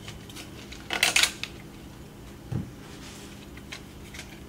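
Small screwdriver working a little metal retaining clip off the drive-wheel axle of a Polaris 380 pool cleaner's plastic frame: a quick cluster of clicks and scrapes about a second in, then a single soft knock a little past halfway, with faint ticks of handling between.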